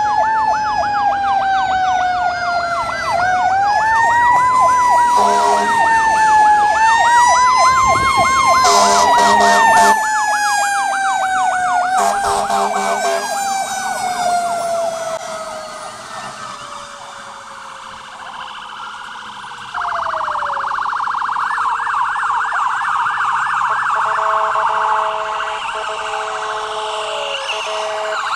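Fire engine sirens: a slow rising-and-falling wail together with a fast yelp, broken by several loud horn blasts, as the engine passes. The wail then slides down slowly and dies away, and about two-thirds of the way through a fresh yelp siren starts suddenly as the next emergency vehicles approach.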